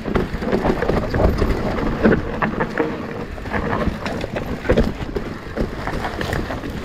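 E-mountain bike riding down a rough trail: tyres rumbling over dirt, with frequent knocks and rattles from the bike, and wind buffeting the camera microphone.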